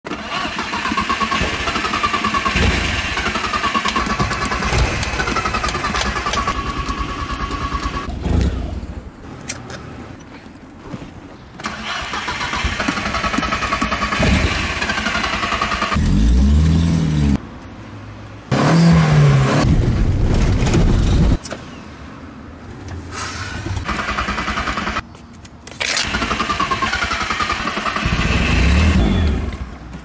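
Carburetted VW Jetta petrol engine being cranked on the starter in long bursts with pauses between them, a hard start of an engine that is flooded. About halfway through it catches and revs briefly twice, then dies back to cranking, and near the end it catches again.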